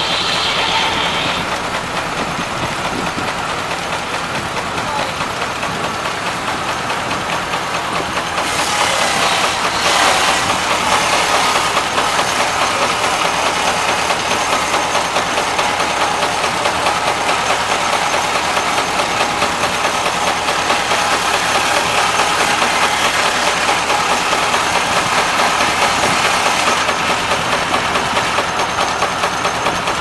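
20 hp Aultman-Taylor steam engine running steadily under belt load, with a regular rhythmic beat. The sound gets louder and brighter for a few seconds from about eight seconds in.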